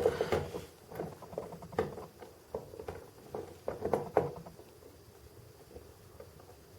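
Small, sharp clicks and taps from handling the metal parts of a 1/50-scale diecast crane model while fitting a tiny pin, a quick irregular run of them that dies away about four and a half seconds in.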